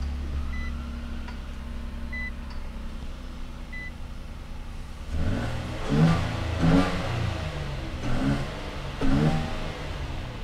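A 2022-or-later Nissan Frontier's 3.8-litre V6 idles just after its first start with a newly fitted snorkel on its air intake. A dashboard chime beeps about every second and a half over the first few seconds. From about halfway through, the engine is revved in several short blips of the throttle.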